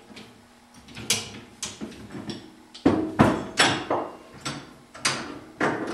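Metal clanks and clicks as a pair of coil-spring compressors are fitted onto a Triumph Spitfire front coil spring and shock assembly: a string of sharp knocks, the loudest about three seconds in with a brief ring.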